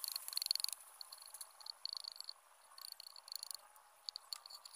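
Insects chirping in short trilling bursts over a steady high-pitched hum, with light scraping strokes of a bolo knife shaving a bamboo piece, strongest in the first second.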